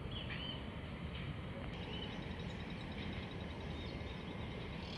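Small birds chirping, a few short calls near the start and about two seconds in, over a steady low rumble.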